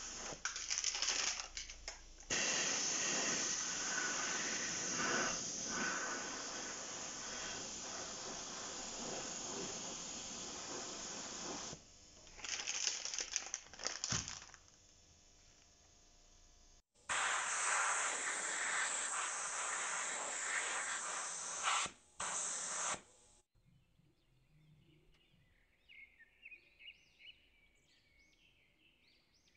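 Compressed-air paint spray gun hissing as it sprays paint onto a saw handle: one long spray, a few short bursts, then another long spray that stops suddenly. Faint bird chirps follow near the end.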